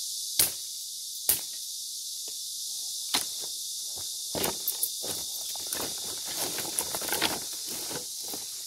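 A steady, high insect chorus, with three sharp knocks in the first few seconds and a stretch of rustling and crunching in the middle.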